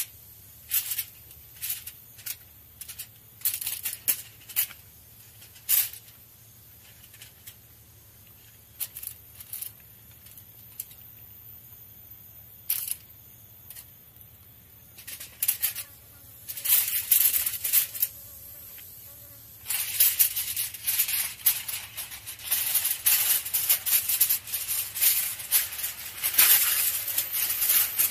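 Aluminium foil crinkling and crackling as it is handled and folded around a fish: scattered crackles at first, growing dense and nearly continuous in the last third.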